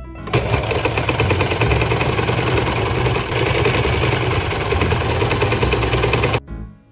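Electric domestic sewing machine stitching at a steady high speed, a fast mechanical rattle that starts just after the beginning and stops abruptly near the end.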